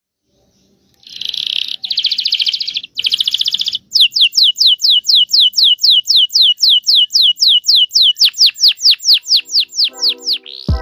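Domestic canary singing: three fast, buzzy rolled trills, then a long run of repeated whistled notes, each sweeping downward, about four a second.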